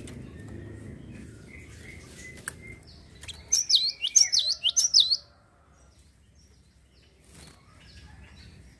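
Gelatik songbird calling: soft short chirps over a low rumble at first, then a loud run of about five quick, sharply falling chirps about three and a half seconds in, then faint chirps near the end.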